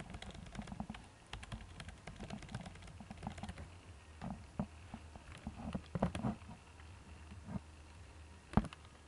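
Laptop keyboard keys being tapped in irregular, light clicks over a faint steady low hum, with one sharper knock near the end.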